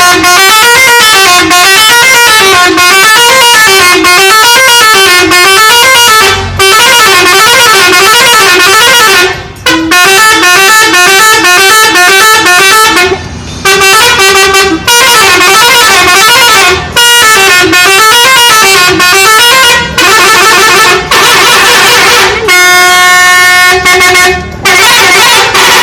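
Telolet bus horn, a multi-trumpet musical horn, playing a warbling melody of rapidly alternating notes in long, loud blasts with short breaks between them, and a steady held chord near the end.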